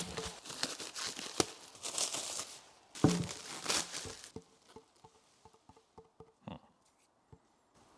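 Plastic wrapping crinkling and tearing as it is pulled off by hand, in bursts over the first four seconds, then a few faint taps and handling sounds.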